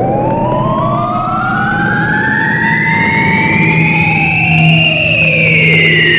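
Electronic soundtrack of slow, siren-like gliding tones: one pitch sweeps steadily upward from low to high over several seconds while another rises and falls, over a steady low drone.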